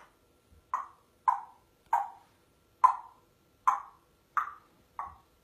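A regular series of about eight sharp clicks or knocks, each dying away quickly, a little under a second apart.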